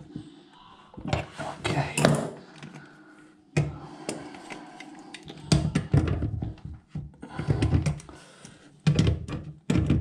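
Irregular metal clicks, knocks and clatter of plumbing tools and fittings being worked on a compression fitting on copper pipe, in several short clusters.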